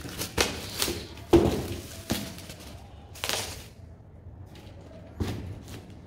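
Bubble-wrapped boxing gloves being pulled out of a cardboard box: bubble wrap and cardboard rustling and crinkling in short bursts, with a thud about a second in.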